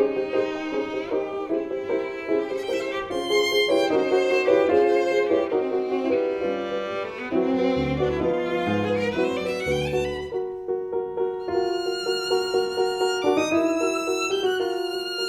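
Instrumental music: a melody of held and moving notes over a sustained accompaniment, with deep bass notes entering about six seconds in and dropping out near ten seconds.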